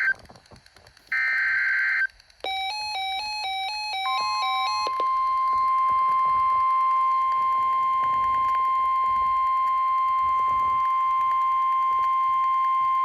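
Emergency Alert System broadcast tones: a one-second digital data-burst screech, then a short chime of tones alternating in quick steps, then the steady NOAA Weather Radio 1050 Hz alert tone, held for about nine seconds.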